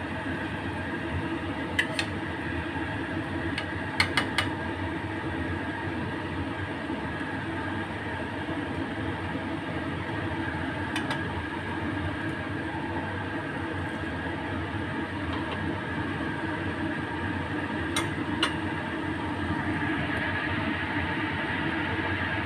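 Chicken and jackfruit simmering in sauce in a stainless steel wok over a steady hum, while a metal spatula clinks against the wok a few times, three in quick succession about four seconds in and twice more near the end.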